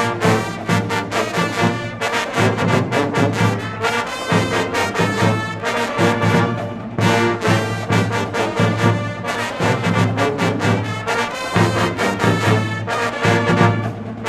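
HBCU pep band playing: trombones and trumpets with drums, a loud continuous brass arrangement with a steady beat.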